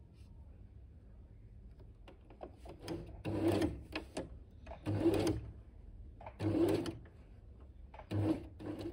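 Domestic electric sewing machine stitching felt in short runs of about half a second, starting and stopping five times from about three seconds in.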